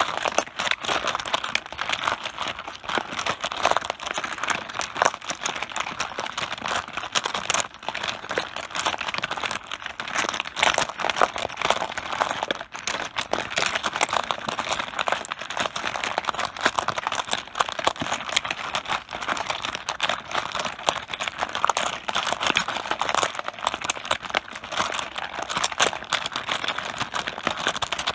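Mahjong tiles clacking against one another and the tabletop: a dense, unbroken run of many rapid, overlapping clicks.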